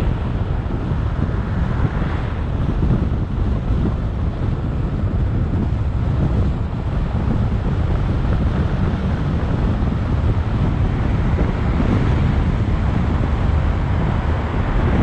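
Steady wind noise buffeting the microphone of a camera on a moving car, with the car's low road and tyre noise underneath.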